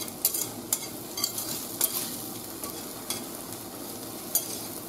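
A wire whisk stirring beaten eggs as they fry in oil in a stainless steel pan: a steady sizzle with irregular clicks and scrapes of the whisk against the pan.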